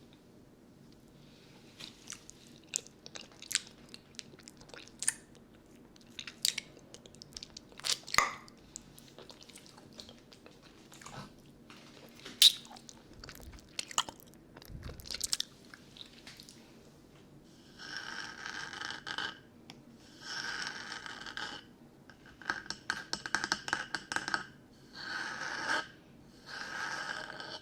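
Close-miked mouth sounds of eating a lollipop: scattered wet clicks and smacks, then about five longer stretches of sucking noise, each lasting around a second, in the last third.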